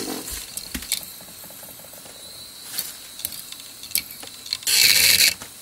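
Broken laptop hard drive making scattered mechanical clicks and ticks. About five seconds in it gives a loud hiss lasting about half a second.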